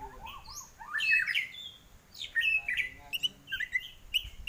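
White-rumped shama (murai batu) singing: quick varied whistles, slurred glides and chirps in short phrases, with a brief lull about two seconds in.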